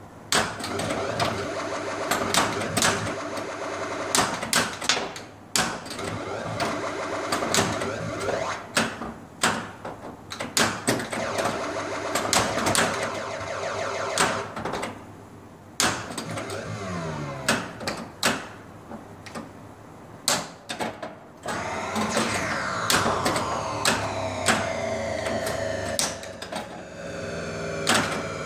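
Gottlieb Volcano pinball machine in play: sharp clacks of the flippers, pop bumpers and other solenoids come many times, over the machine's electronic sound effects. Near the end these include a run of falling electronic sweeps.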